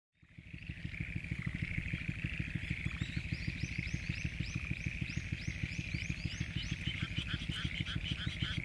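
Dense chorus of many frogs calling together, which the recordist takes to be mostly black-spotted pond frogs (tonosama-gaeru), possibly with other species. It fades in at the start, with higher, rapidly repeated calls joining in partway through.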